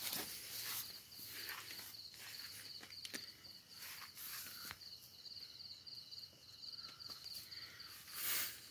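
Night insects chirping in a steady, high, pulsing trill, with scattered footsteps and rustling of leaves and branches in the undergrowth.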